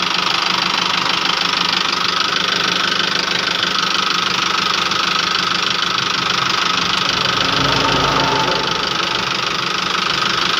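Isuzu Elf 4x4 truck's diesel engine running steadily with a fast, even knock, turning the front wheel and hub.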